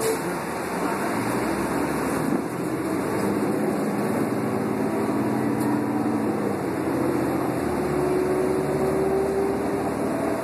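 Cummins ISL diesel engine and Allison B400R automatic transmission of a New Flyer D40LF transit bus, heard from inside the passenger cabin: a steady drone with road noise and a whine that climbs in pitch as the bus picks up speed, breaks off about seven seconds in, and climbs again.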